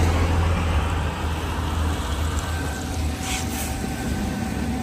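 Low engine rumble of a nearby motor vehicle, fading gradually as it moves off.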